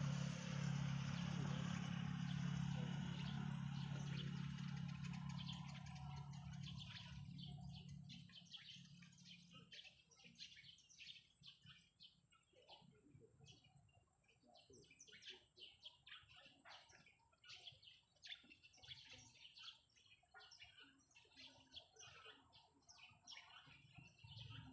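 Birds chirping in quick, dense runs of short high notes. A low steady hum with a rushing noise fades away over the first eight seconds or so.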